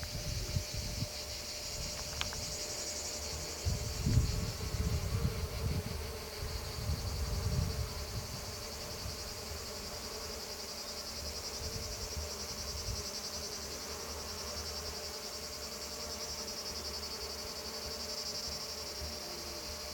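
Steady, high, finely pulsing insect chirring, like a chorus of crickets. Irregular low rumbles during the first eight seconds.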